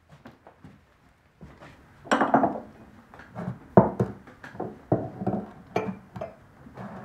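Glass jars and paint containers clinking and knocking together as they are handled and moved about on a worktable, a run of irregular clinks and knocks.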